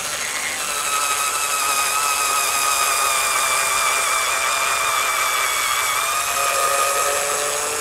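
Bosch IXO 6th-generation 3.6 V cordless screwdriver with its slow 440 RPM drilling attachment, boring a 3 mm bit into wood: a steady motor-and-gearbox whine held throughout.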